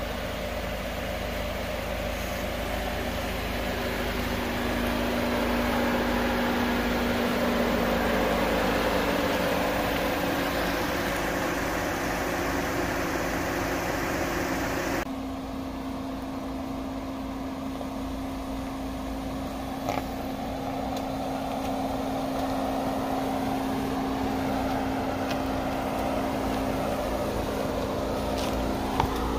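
Jeep Wrangler Rubicon's engine running steadily with a low hum. The sound changes suddenly about halfway through, and there is a small knock near the end.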